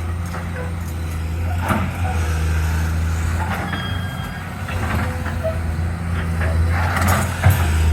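Excavator's diesel engine running with a steady low drone, with a few clanks and knocks from the digging, the sharpest near the end.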